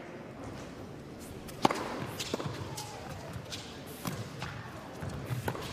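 Tennis ball struck back and forth by racquets in a rally, a string of sharp hits and bounces; the first and loudest comes about one and a half seconds in.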